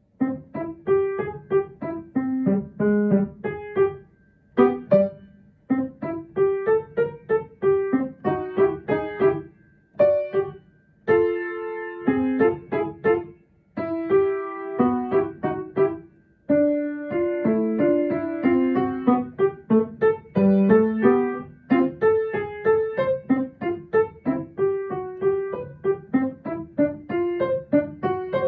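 Solo piano playing a lively children's piece in short, quick notes. The phrases are broken by brief pauses.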